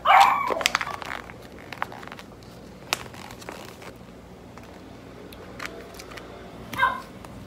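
Light clicks and crinkling from a pumpkin juice pouch being handled, with a short louder sound right at the start and another just before the end.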